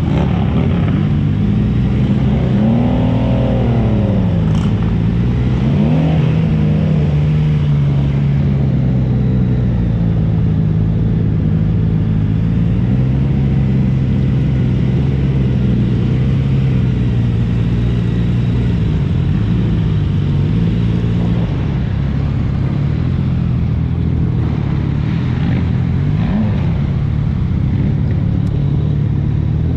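Motorcycle engines running on the road as a steady, loud drone, with a couple of brief revs rising and falling in the first few seconds.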